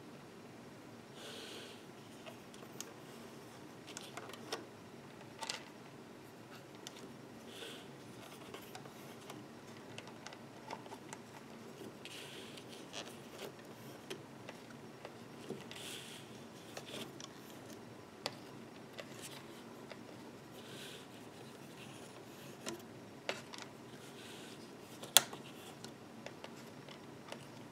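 Quiet handling of a clear plastic loom board: soft rustling and scattered small clicks as rubber loom bands are stretched and slipped over the plastic pegs, with one sharper click near the end.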